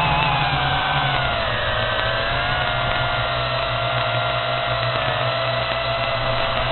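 Drone propellers and motors whining in flight, a steady pitched hum that drops slightly in pitch about a second and a half in and then holds.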